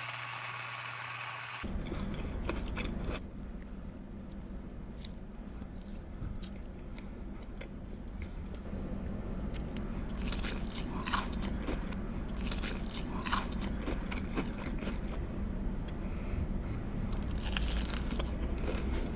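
A person biting and chewing crunchy fried fast food close to the microphone: scattered crisp crunches and mouth clicks, busier in the second half. A steady low hum comes in under it after about two seconds.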